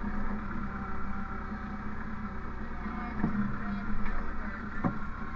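Engine of a bale-loading machine running steadily, with two short knocks about three and five seconds in.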